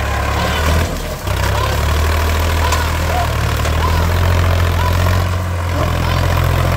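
Sonalika 42 DI tractor's diesel engine running steadily under load as it hauls a fully loaded sugarcane trolley, with a brief dip in the engine sound about a second in.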